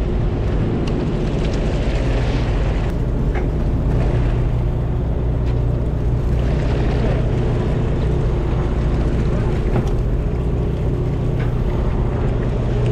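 A boat's engine running steadily at low revs, a constant low hum, with water washing against the hull in two swells.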